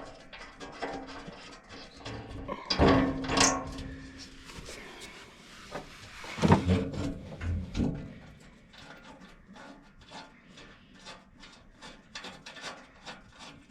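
Hand tools and metal parts clattering during work on a wood chipper: two bursts of louder knocks and scrapes, then a run of light, quick clicks toward the end.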